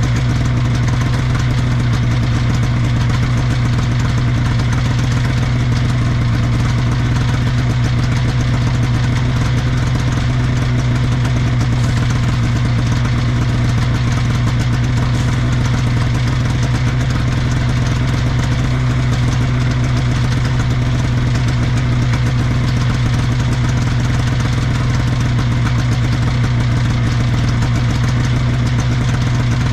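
1979 Scorpion Whip TKX 440 snowmobile's Cuyuna 440 two-stroke engine idling steadily, holding one pitch throughout.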